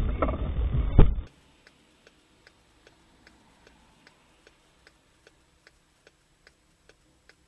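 Faint, even ticking, about two and a half ticks a second, over near silence. Just before the ticking starts, muffled car-cabin noise ends in a sharp knock about a second in.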